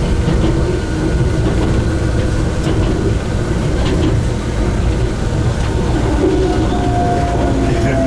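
Enoden (Enoshima Electric Railway) train running: a steady rumble with a few scattered clicks, and a whine that comes in about six and a half seconds in and slowly falls in pitch.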